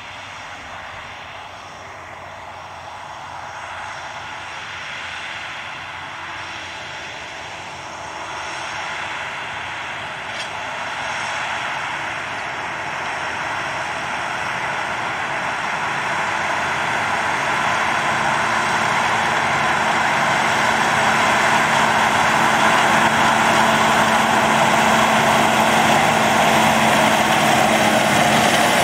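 Challenger MT775E crawler tractor's engine running under load as it pulls a Horsch Joker disc harrow through dry soil, along with the noise of the tracks and discs working the ground. The sound is steady and grows louder throughout as the tractor draws near.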